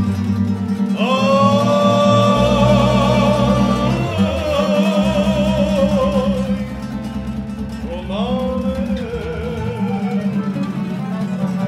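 Live accordion and a plucked string instrument playing, accompanying a man singing long held notes with vibrato. The voice comes in about a second in and returns for a second phrase about eight seconds in.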